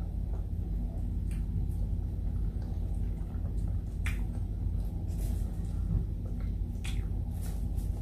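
A person chewing food close to the microphone, with a few sharp wet clicks and smacks from the mouth, over a steady low hum.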